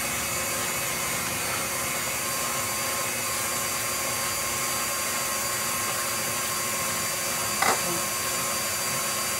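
KitchenAid stand mixer running with its rotary slicer attachment, a steady motor whir as plantains are pushed through and sliced into thin rounds. One short knock a little before the end.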